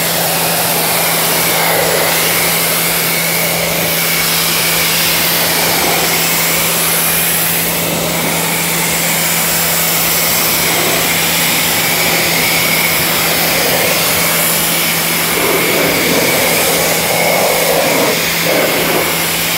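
Pressure washer running with a steady motor hum, its spray hissing against a car's paint and panels. The splash swells and fades as the wand is moved across the bodywork.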